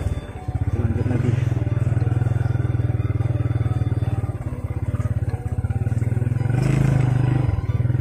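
Motorcycle engine running steadily while ridden, a low, even hum with a brief dip just after the start.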